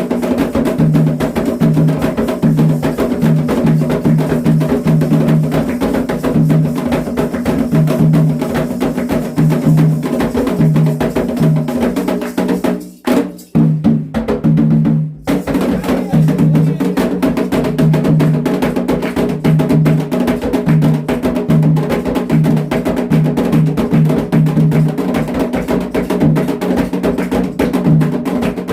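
Percussion-led music: drums under a dense, fast wood-block-like clicking with a repeating low pitched pattern. It drops out briefly twice about halfway through.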